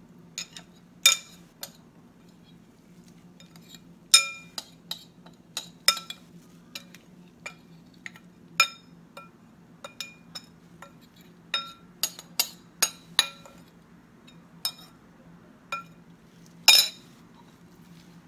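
A spoon clinking and tapping against bowls in irregular single strikes, each with a short bright ring, as dressing is scraped out of a small bowl onto vegetables in a stainless steel mixing bowl. A steady low hum runs underneath.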